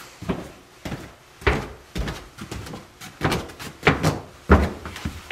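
Footsteps walking down a stairwell, about two steps a second, each step a sharp knock with a short echo.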